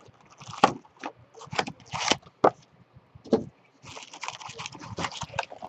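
Cardboard box of Topps Update baseball card packs being opened and handled: a series of separate scrapes and taps on the cardboard, then, from about four seconds in, a run of crinkling as the wrapped packs are lifted out.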